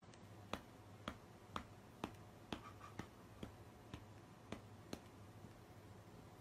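A series of faint, sharp clicks, about two a second for roughly four and a half seconds, over a low steady hum.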